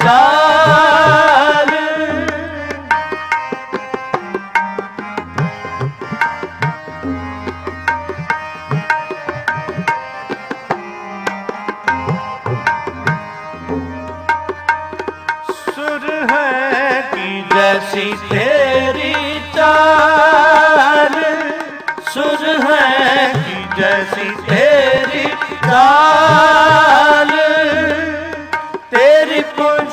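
Shabad kirtan: tabla drumming with harmonium through an instrumental passage, with deep bass-drum thuds recurring. From about halfway through, the singer's voice returns in long gliding phrases over the harmonium and tabla.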